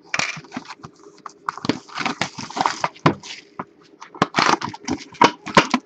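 A Fleer Showcase hockey card hobby box being unwrapped and opened by hand: irregular crackling and rustling of wrapper and cardboard, with a few sharper clicks.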